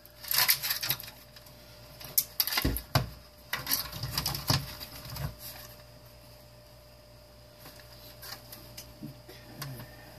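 Clicks, knocks and clatter of small metal and plastic parts as a space heater is pulled apart for scrap, with a cluster of sharp knocks in the first half and only light handling noise after that.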